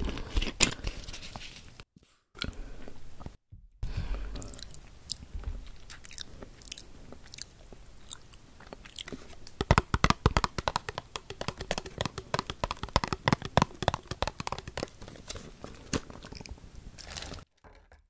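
Close-miked eating and handling sounds. A plastic bottle cap is twisted at the start. From about nine seconds in come chewing and a dense run of quick, crisp clicks while a plastic cup of jelly dessert is handled.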